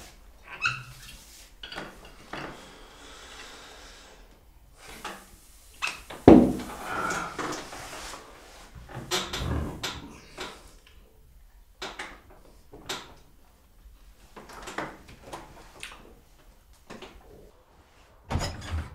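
A glass bottle and a small drinking glass handled on a table: scattered clinks and knocks, the loudest about six seconds in, with another knock near the end.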